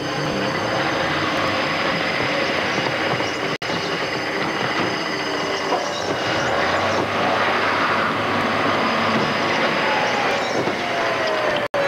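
Firehouse alarm sounding steadily over the clatter and commotion of firefighters rushing to their gear, with a falling tone near the end.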